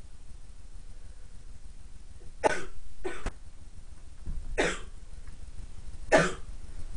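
A person coughing four times in short, sharp coughs, spread over a few seconds.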